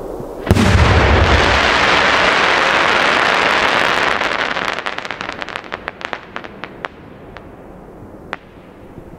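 An 8-inch (200 mm) gold crackling willow firework shell bursting with a deep boom about half a second in, followed by a dense wash of crackling from its stars that thins out into scattered single pops over the next few seconds.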